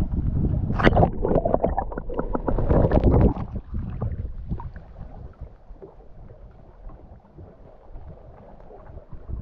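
Water splashing and sloshing over a low rumble, loud with several sharp splashes for about the first three seconds, then dropping to a quieter rumble.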